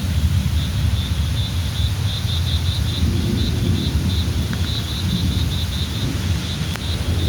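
Outdoor field recording: a low, uneven rumble with a faint high chirping repeated several times a second, and a single click near the end.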